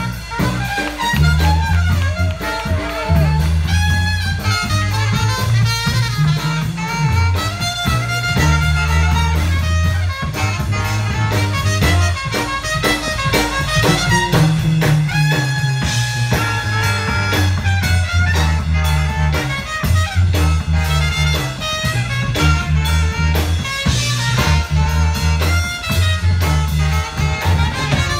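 A New Orleans brass band playing a blues number live: trombone, trumpet and saxophone over a low bass line that steps from note to note.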